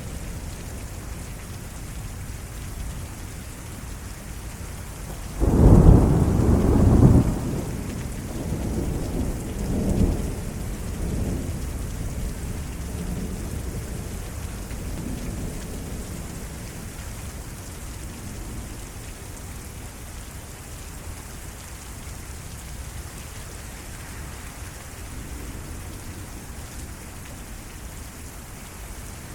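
Steady heavy rain from a derecho thunderstorm. About five seconds in, a loud clap of thunder breaks in and rumbles on for about two seconds, with weaker rolls of thunder following over the next few seconds before the rain alone remains.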